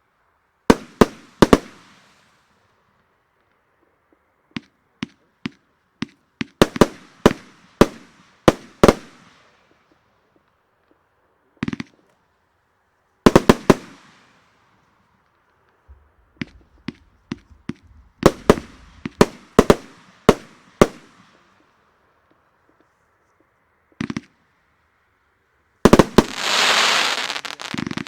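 Riakeo Peking Opera 1 compact firework cake firing in volleys: groups of sharp bangs with short fading tails, separated by brief pauses. Near the end comes a loud, dense stretch of crackling.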